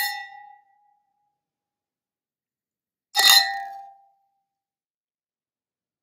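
Two fluted champagne glasses clinking together twice: once at the start and again, louder, about three seconds in. Each clink is a sharp glassy strike that rings on briefly before dying away.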